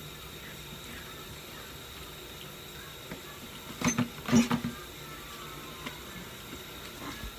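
Kitchen tap running steadily into a stainless steel sink during hand dishwashing, with a brief clatter of dishware knocking against the sink about four seconds in and a few lighter clicks.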